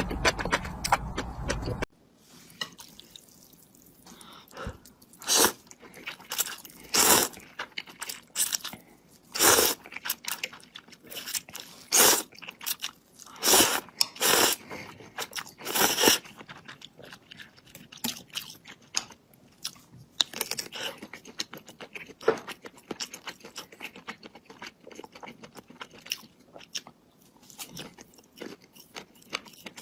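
Close-miked chewing and crunching of crunchy food, with a run of loud crisp crunches in the first half that give way to softer chewing.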